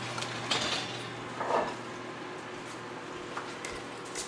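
A metal baking sheet of empanadas being pulled out over the oven rack: a short metallic scrape about half a second in, then a duller clunk about a second and a half in, over a steady low hum.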